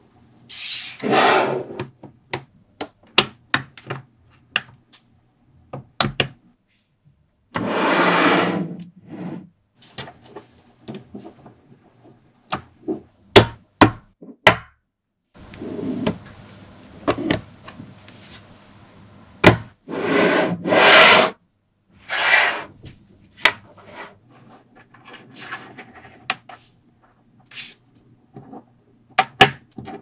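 Small magnetic balls clicking and snapping together as they are handled, in quick irregular clicks. Several times, clusters of balls are slid across the tabletop with a second-long scrape.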